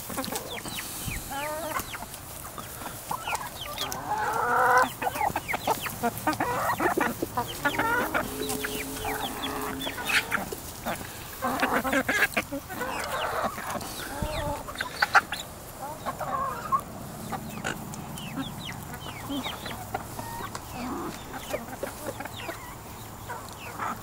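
A flock of backyard hens clucking and calling again and again as they feed, with many quick sharp taps of beaks pecking at food in a metal saucepan.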